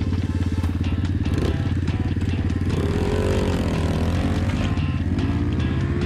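Pit bike engine running steadily, its pitch sagging and then rising again in the second half as the throttle is worked.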